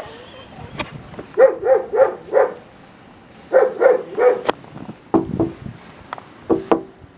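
Dog barking in quick runs of three or four short barks, twice, then a few more scattered barks near the end, as dogs play together in the snow.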